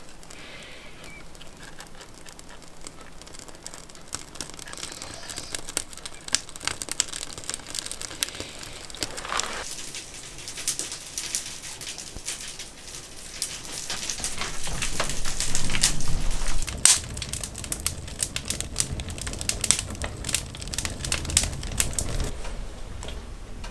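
Kindling catching in a wood stove, crackling and popping with irregular sharp snaps; a low rumble joins in about two-thirds of the way through.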